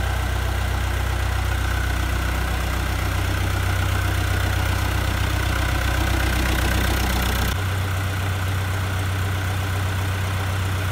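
Fiat 600 tractor's diesel engine idling steadily. About seven and a half seconds in, the deepest part of the rumble drops away abruptly.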